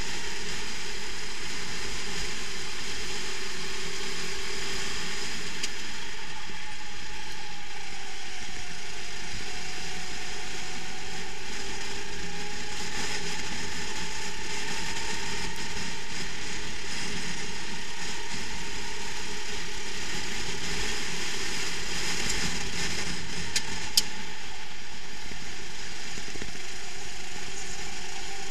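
Racing kart's motor and drivetrain heard from the kart itself, a steady mechanical whir and rattle whose pitch rises and falls slowly with speed through the corners. A single sharp click near the end.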